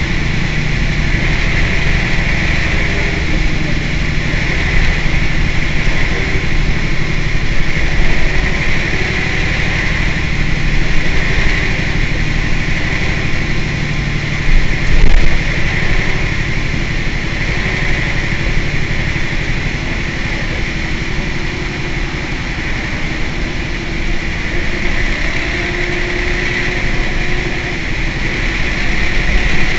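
Mercedes-Benz O 405 N city bus's rear-mounted diesel engine idling steadily, with a high hiss that swells and fades every couple of seconds and a brief louder bump about halfway through.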